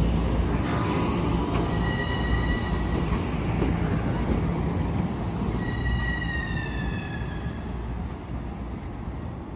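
Metro-North electric commuter train running away over the rails, its low rumble slowly fading. The wheels squeal twice: a high ringing tone about two seconds in, and another that slides slightly down in pitch a little past the middle.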